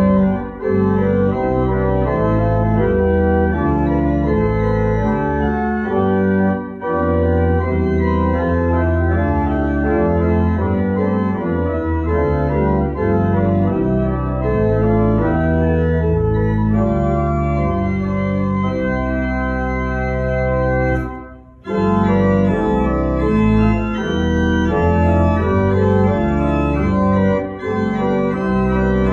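Church organ playing sustained chords over a deep bass line, the chords changing every second or so, with a brief break about two-thirds of the way through.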